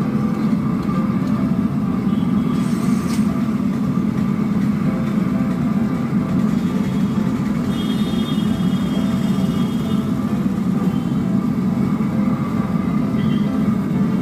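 Banana chips deep-frying in a large iron kadhai of hot oil, a steady loud rushing bubble, with one sharp knock about three seconds in, as of the steel skimmer against the pan.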